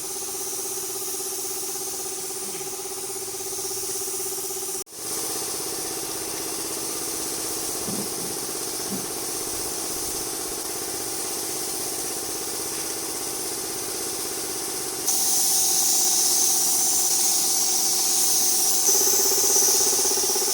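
Steady machine hum with a high hiss over it. It breaks off abruptly about five seconds in and comes back at once, then the hiss gets louder about fifteen seconds in.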